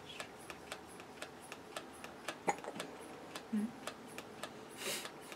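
Medela manual breast pump being worked by hand, its lever and valve clicking steadily about four times a second as it draws out the nipple. A brief soft rustle near the end.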